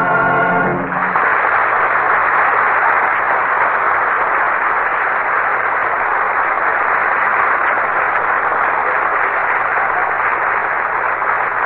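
Music ends about a second in, then a steady, even noise without any pitch fills the rest at the same loudness as the music.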